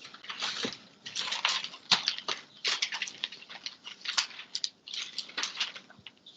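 Irregular scratchy rustling and crackling, several quick noisy strokes a second with short gaps between them: handmade foley noise.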